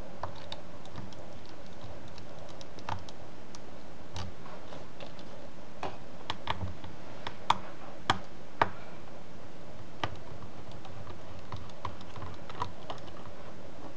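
Scattered light clicks and taps of a precision screwdriver turning out the small screws of a laptop screen's metal hinge bracket, with the plastic screen frame knocking and shifting in the hand. A few sharper clicks come a little past the middle.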